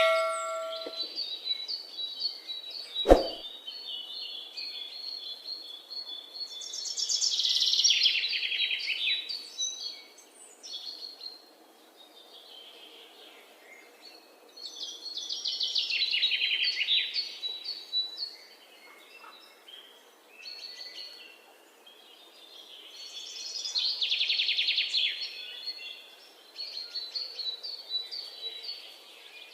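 Bird song: a loud, high trilled phrase repeated three times, about eight seconds apart, with quieter high chirps in between. A sharp click about three seconds in.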